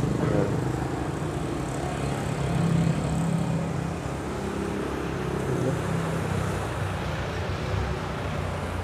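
Steady low hum of motor-vehicle traffic.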